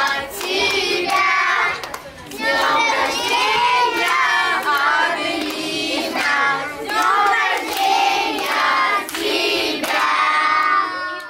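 A group of children and women singing together in unison, with hand clapping through it. The sound cuts off abruptly at the end.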